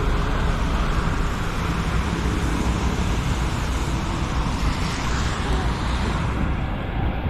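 Steady noise of road traffic on a rain-wet highway: vehicles passing, with tyres on wet tarmac.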